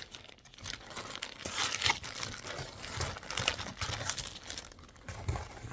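Packaging being handled and opened: irregular crinkling and rustling with some tearing, louder in a couple of bursts partway through.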